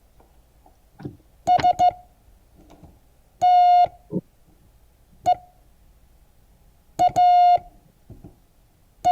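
Morse code tone sending the word STEAK: a steady, buzzy beep keyed in short dits and long dahs. Each letter is sent quickly, with gaps of about two seconds between letters: S (three dits), T (one dah), E (one dit), A (dit-dah), and the K beginning at the very end.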